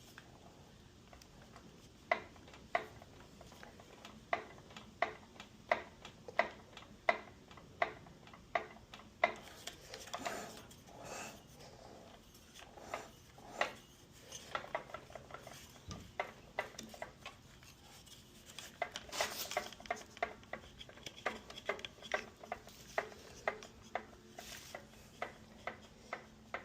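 Hand tools and metal parts clinking and tapping on a small mower engine, sharp clicks one by one and in quick runs, with some light scraping.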